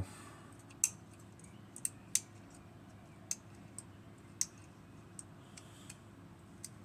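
Light, irregular metallic clicks of a lever-lock pick and tensioner working the levers inside a lever lock, about eight scattered clicks.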